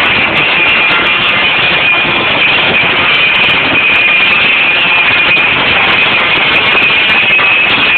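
Live rock band playing loud with distorted electric guitar, heard as a dense, steady wall of sound with no clear notes standing out.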